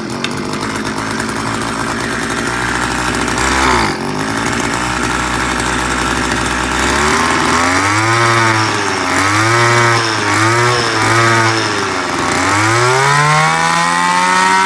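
Tanaka two-stroke brush cutter engine, just started and idling, then revved up and down about once a second from about halfway through, with a longer rev near the end. Its carburettor mixture and idle have not yet been adjusted.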